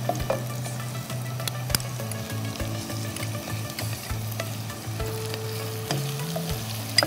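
Chopped onions sizzling in hot oil in a pot, browned, while a wooden spatula stirs them, its strokes scraping and clicking against the pot.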